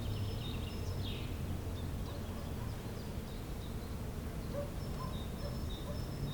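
Songbirds calling in a spring forest: short high repeated notes and a quick falling call about a second in, with a few fainter lower notes later, over a steady low background rumble.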